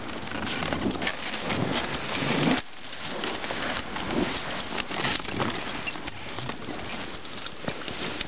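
Dog sled moving along a snowy trail: the runners hiss and scrape over snow while twigs and brush crackle and snap against the sled. The louder rushing drops off abruptly about two and a half seconds in, leaving scattered clicks and crackles.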